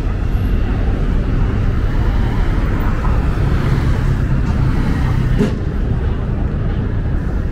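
City street traffic: cars passing in a steady rumble, with a brief click about five and a half seconds in.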